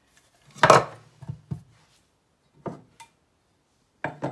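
A few knocks and clunks of an electric coffee grinder's stainless steel cup being lifted off its base and handled, the loudest about two-thirds of a second in. The grinder motor is off.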